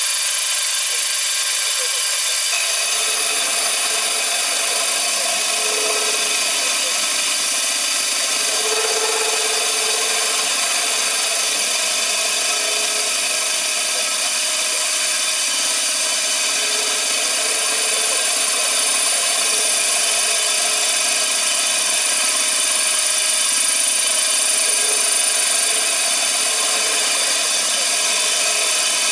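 CNC machine running steadily: an even, loud machining noise with a sustained whine, steady throughout after it builds up about two and a half seconds in.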